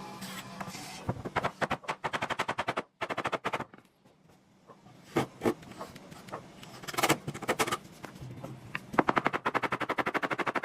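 A woodworking tool clicking in rapid runs of about a dozen sharp clicks a second, in several bursts with short pauses between.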